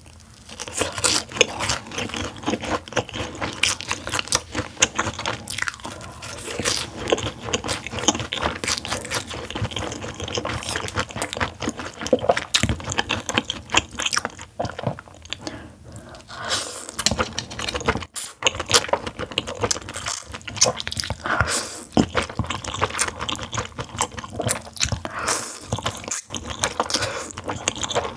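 Close-miked eating sounds: crunchy chewing and biting, with jjambbong noodles slurped near the end.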